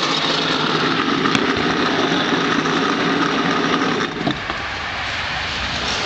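Garbage disposal motor running steadily as it grinds pumpkin seeds with water, then stopping about four seconds in, leaving a quieter steady background.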